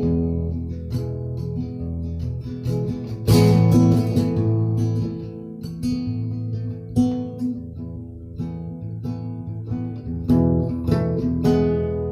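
Acoustic guitar playing: picked and strummed chords, with a strong strum about three seconds in.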